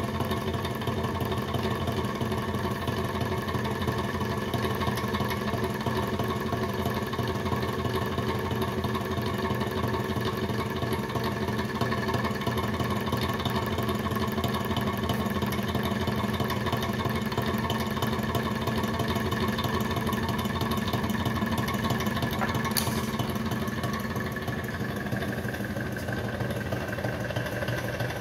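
Antique lamp fan's hot-air engine running steadily, its crank and piston making a fast, even clatter over the whir of the spinning fan blades. A single sharp click comes near the end.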